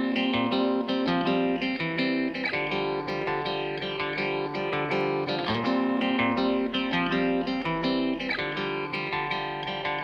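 Background music played on a plucked guitar, with a steady run of notes.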